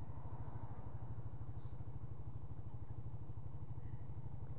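Motorcycle engine running steadily at low road speed, an even low pulse with no change in revs.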